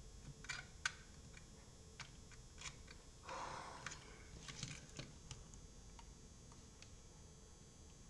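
Faint scattered plastic clicks and taps as a keyboard's USB plug is handled and pushed into a USB port on a motherboard, with a brief scraping rustle a little over three seconds in.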